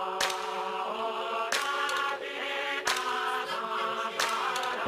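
Electronic intro music: a steady held note under layered chant-like vocal sounds, punctuated by a sharp hit about every second and a third.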